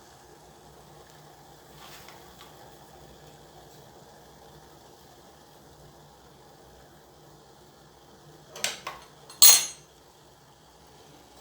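Kitchen utensils clinking against crockery: a couple of quick light clinks near the end, then one louder, slightly longer clink a moment later, over a faint steady hum.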